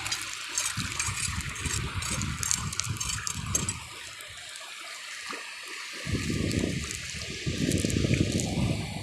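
Shallow water sloshing and trickling in irregular surges, with a lull of about two seconds in the middle.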